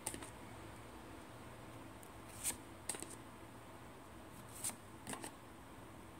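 Tarot cards of ordinary paper stock slid one at a time off a handheld deck, giving several short paper swishes and flicks, some in quick pairs.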